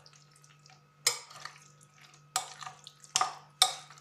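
Metal spoon clinking against a glass bowl while stirring raw chicken pieces into a thick pesto marinade. About four sharp, ringing clinks come at uneven intervals, with softer scraping ticks between them.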